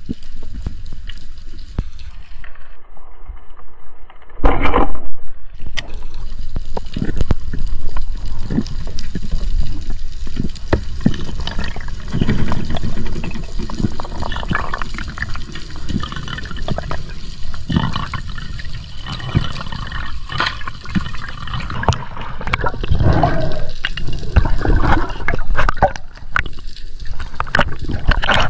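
Underwater water noise against a camera housing, rushing and gurgling with irregular knocks throughout. A sudden loud thump about four and a half seconds in is the speargun firing at an Atlantic bonito.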